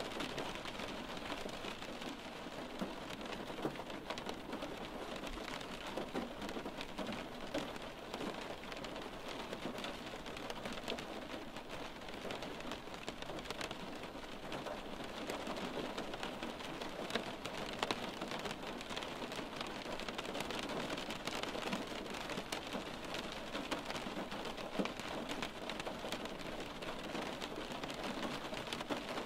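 Steady rain on window glass: an even hiss with many small, quick ticks of drops striking the pane.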